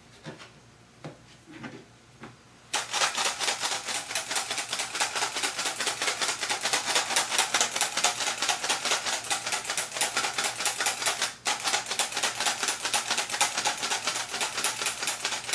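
Stainless steel hand-operated flour sifter clicking rapidly and evenly as its mechanism is worked to sift flour, starting about three seconds in after a few soft knocks, with one short break about two thirds of the way through.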